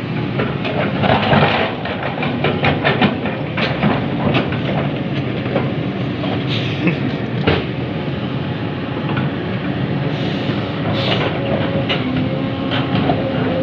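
Jonyang JY623E excavator working: its engine runs steadily under load while metal clanks and knocks come irregularly throughout. A steady whine joins from about ten seconds in.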